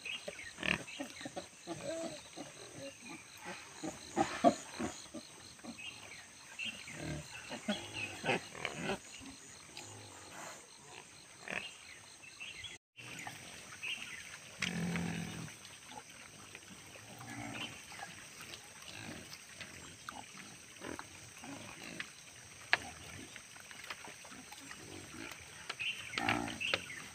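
Black wild boars grunting in short, irregular calls, with a longer, deeper grunt about 15 seconds in. The sound cuts out for a moment near the middle.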